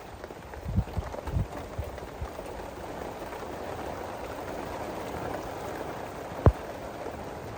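Steady rain falling and pattering on surfaces, with a few low thumps about a second in and one sharp knock near the end.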